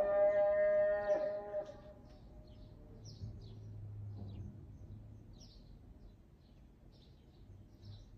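The Islamic call to prayer (ezan) ends a long, ornamented sung phrase about two seconds in. Short high bird chirps follow, scattered through the rest, over a faint low hum.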